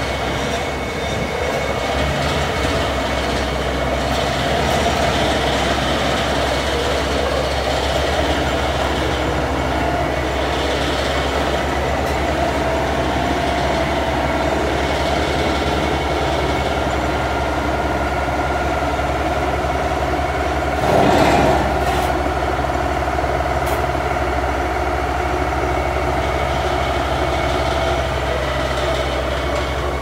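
Vibratory pile-driving hammer running steadily on a corrugated concrete sheet pile as the pile sinks into the ground, a continuous heavy hum and rumble without separate hammer blows. A brief louder burst comes about two-thirds of the way through.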